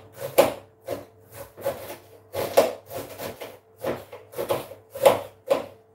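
Knife chopping through a cabbage on a chopping board: short crunching cuts, about two a second at an uneven pace.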